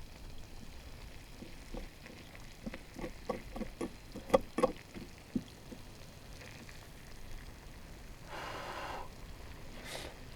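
A quick run of light knocks and clinks, some with a short ring, followed later by a brief hiss and one more clink near the end.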